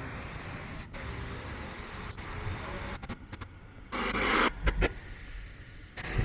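Steady outdoor background noise, a hiss over a low rumble, with a short louder burst of hiss about four seconds in.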